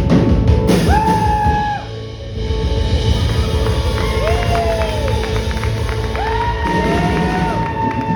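A rock band playing live, with a singer holding long notes over drums and bass: three sustained sung notes, the last and longest carrying on to the end.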